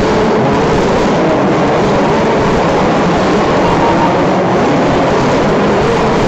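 Steady, loud din of a radio-controlled off-road race track, with the faint wavering whine of RC buggy motors running through it.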